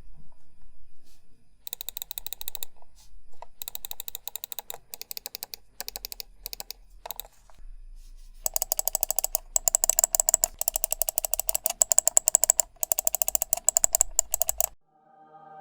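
Computer mouse microswitches clicked in rapid trains of sharp clicks. The clicks are softer for the first several seconds, then much louder and sharper from about halfway in. At the end the clicking stops suddenly.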